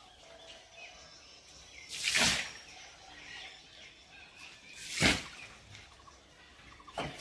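Three short splashing hisses about every two to three seconds, one just after two seconds in, one about five seconds in and one near the end: handfuls scattered from a bucket spattering onto the water of a fish-farming tank.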